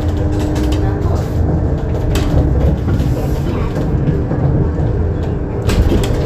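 Ikarus 412GT trolleybus standing with its electrics running: a steady hum of a few held tones over a low rumble. Two sharp clicks come about two seconds in and near the end.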